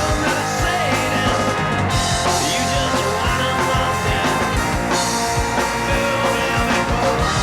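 Rock music with guitar and a steady drum beat, between sung lines.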